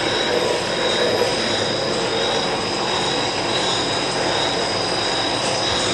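Monarch engine lathe running with its chuck spinning: a steady mechanical running noise of the spindle drive, with a steady high-pitched whine over it.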